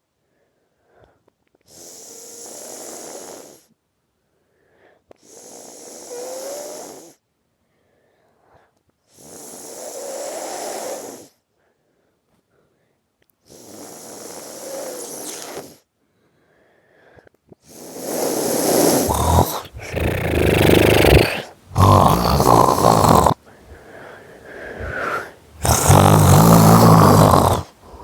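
A person snoring. At first there are slow, noisy breaths about every four seconds. From about eighteen seconds in come much louder, rasping snores, several of which cut off abruptly.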